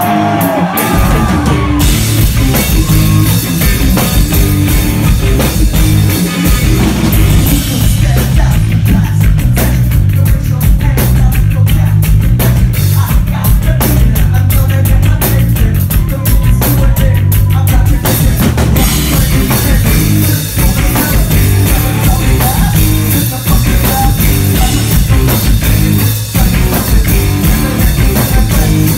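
Rock band playing live and loud: electric guitar, bass guitar and drum kit, heard from the crowd.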